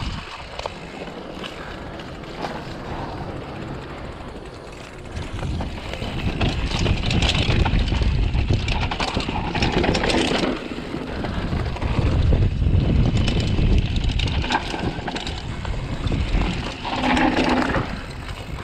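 Wind buffeting the microphone, mixed with the rumble and clatter of a downhill mountain bike rolling fast over a rough dirt trail. It gets louder from about six seconds in.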